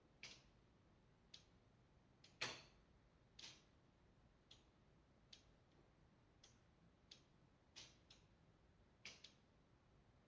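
A flat roof ticking and clicking: about a dozen short, sharp ticks at uneven intervals, with one louder crack about two and a half seconds in.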